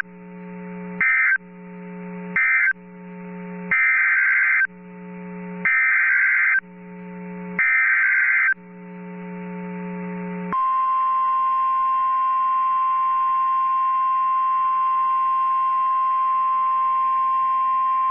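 NOAA Weather Radio Emergency Alert System signalling: two short screechy SAME data bursts closing the previous message, then three longer SAME header bursts announcing the next warning, each about a second long and a second apart, over a low steady hum. About ten seconds in, the steady 1050 Hz warning alarm tone starts and holds for about nine seconds.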